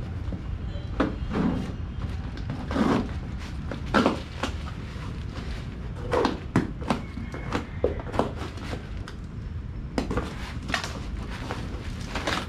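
A package being handled and opened: scattered knocks, light clatters and rustling at irregular intervals over a steady low hum.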